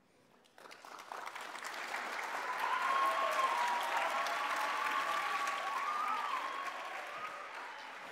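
Audience applause in a large auditorium, starting about half a second in, swelling to its height after a few seconds and then slowly dying down.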